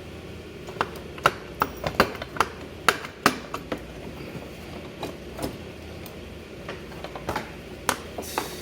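Metal parts and hand tools clicking and knocking irregularly as a scooter's CVT transmission (variator and belt drive) is taken apart by hand.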